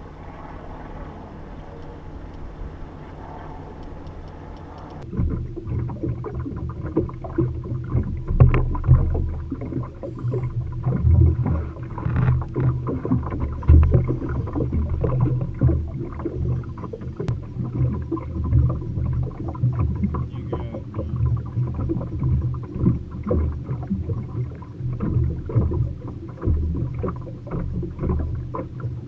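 Wind buffeting the microphone in an irregular low rumble, starting abruptly about five seconds in over a steady low hum.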